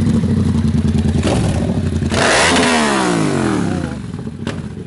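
Yamaha MT-07 parallel-twin engine through a handmade exhaust, idling steadily, then blipped sharply about two seconds in, the revs falling back toward idle over the next two seconds.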